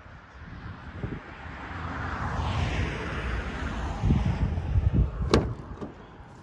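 A vehicle passing on the road, its tyre noise swelling and then fading, with wind buffeting the microphone. About five seconds in, a sharp click as the car's door is unlatched and opened.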